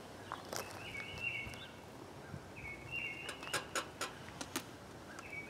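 A bird calling: short two-pitched chirp phrases repeated about every two seconds. In the middle there are a few sharp clicks and taps from handling a book and the gel block.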